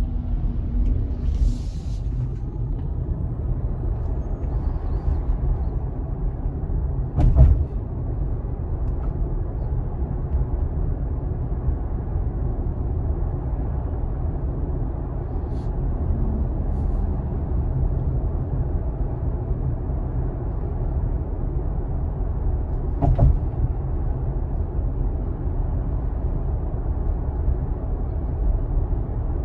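Steady tyre and road rumble of a Tesla Model Y Dual Motor on the move, heard from inside the cabin, with no engine note. Two sharp thumps come through, about seven seconds in and again about six seconds before the end.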